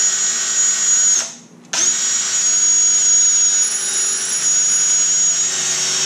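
Cordless drill running steadily while drilling a pilot hole in a grille filler panel. It stops briefly about a second in, then spins up again and runs on with a steady whine.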